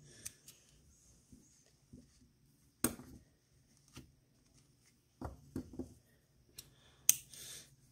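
Small craft scissors snipping yarn ends and handling on a cardboard piece: scattered sharp clicks and snips, the loudest about three seconds in and near the end, with a few soft knocks and faint rustling between.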